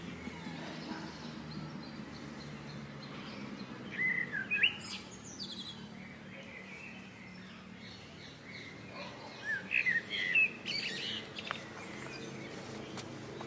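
Small birds chirping in two short bouts, about four seconds in and again around ten seconds, over a steady low background hum.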